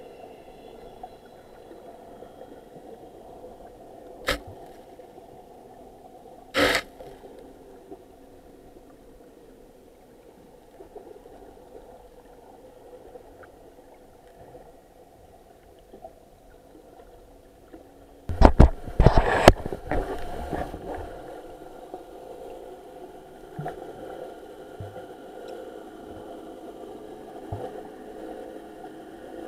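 Muffled underwater ambience picked up by a camera in a waterproof housing: a steady low hum. It is broken by a sharp knock about four seconds in and a short clatter a couple of seconds later. The loudest part is a burst of knocks and rushing noise lasting about two seconds, around eighteen seconds in.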